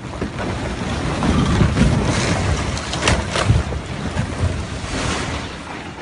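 Loud rumbling roar of a large rockfall collapsing down a slope, building over the first second, with a couple of sharp cracks about three seconds in.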